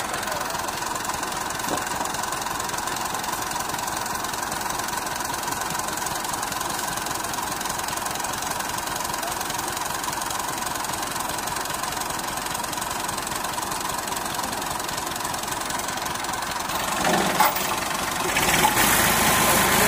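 Massey Ferguson tractor's diesel engine idling steadily, growing louder near the end.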